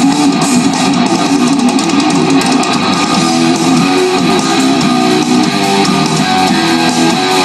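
Guitar-led recorded music played loud and steadily through a JCM Audio PA sound system during its demo session.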